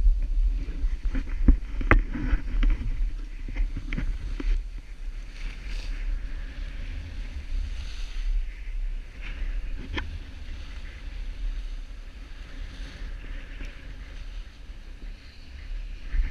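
Skis sliding and carving over packed, groomed snow with a hiss, and wind rumbling on the microphone. A few sharp clicks come through, most of them in the first few seconds, with single loud ones about two and ten seconds in.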